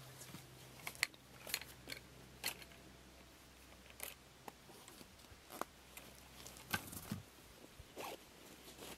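Scattered clicks, scrapes and rustles of a rifle being picked up and set down on its folding bipod, with clothing rustling as the shooter kneels and gets into position.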